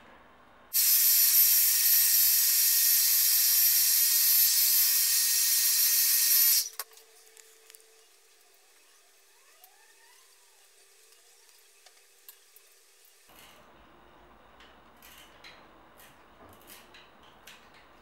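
Hair dryer blowing, a loud steady hiss with a faint fan whine, heating a stuck sticker to soften its adhesive; it is switched on just under a second in and cut off suddenly after about six seconds. Then only faint scrapes and small clicks of a knife blade working under the sticker.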